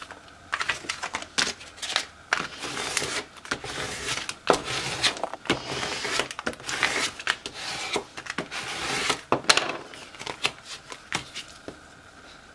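Plastic scraper tool rubbed back and forth over transfer tape laid on cut vinyl, burnishing it down: a run of short, scratchy strokes along with the rustle of the sheet being handled. It stops about a second before the end.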